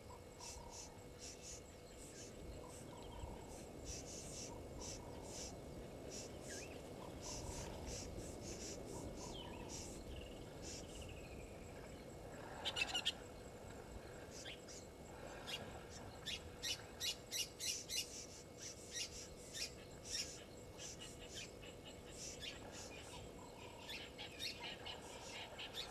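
Wild birds calling and chirping in many short, high, repeated notes. A single louder call comes about halfway through, and a quick run of loud sharp chirps follows a few seconds later.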